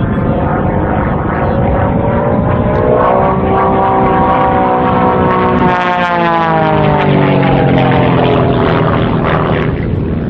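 Pitts aerobatic biplane's piston engine and propeller droning, the pitch rising for a few seconds to a peak about six seconds in, then dropping lower and holding steady as it climbs.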